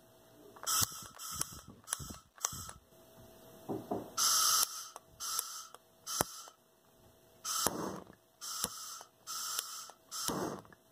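Bernzomatic TS4000 trigger-start torch fired repeatedly without lighting: about ten short hisses of escaping gas, several with a sharp igniter click. The igniter is grounding out, giving no spark.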